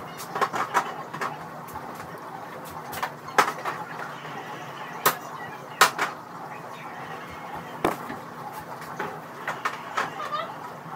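Scattered clicks and knocks of containers, jars and shelves being handled while a refrigerator is cleaned out, over a faint steady hum.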